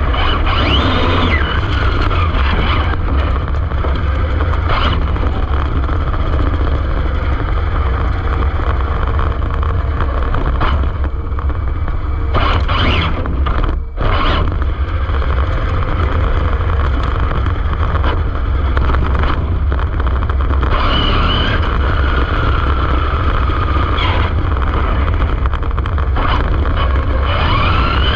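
Brushless motor of an Arrma Infraction 6S RC car whining up and down in pitch as it speeds up and slows, over a constant loud rumble from the car running over the ground. The sound drops out briefly about halfway through.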